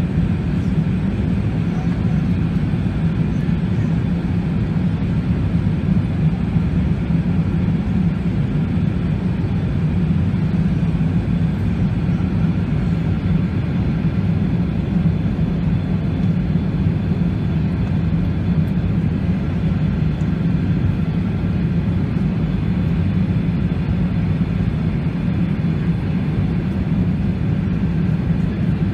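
Steady low drone of the cabin noise inside an Airbus A380 in flight.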